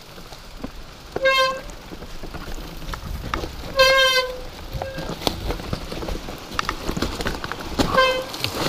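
Mountain bike brakes squealing in three short, steady-pitched honks, the middle one longest, as the bike runs down a rough, rocky trail. Between them the bike rattles and clicks over rocks.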